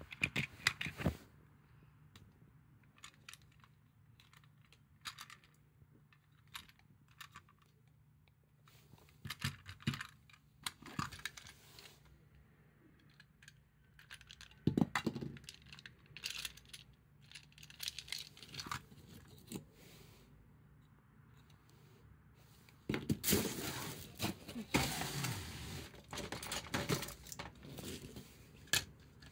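Plastic toy streetcar cars, models of Hiroshima's 5100-series tram, clicking and knocking as they are handled and fitted together, with scattered taps. A louder stretch of rattling and rubbing comes in about three-quarters of the way through.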